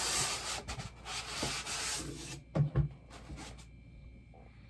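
Box packaging being handled and opened: a couple of seconds of rubbing and scraping, then two sharp knocks and a few light clicks.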